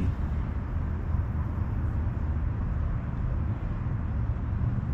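A steady low rumble with an even hiss, outdoor noise on the microphone with no distinct event in it.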